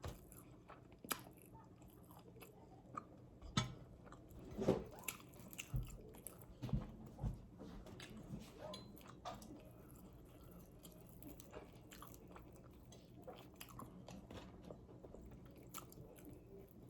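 Close-miked biting and chewing of extra-crispy fried chicken wings: crackly crunches and mouth noises, loudest in a burst of bites a few seconds in, then quieter chewing.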